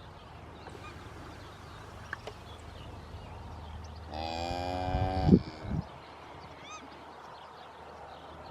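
A calf bawls once, a drawn-out call of about a second and a half starting about four seconds in, with a couple of sharp thumps near its end. A few faint bird chirps follow.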